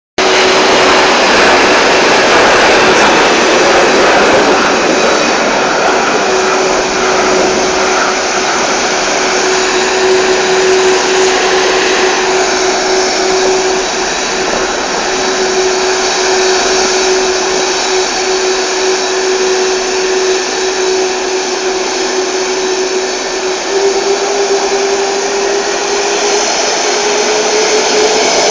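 Jet aircraft engines making a loud, steady roar with a whining tone that climbs in pitch over the last few seconds.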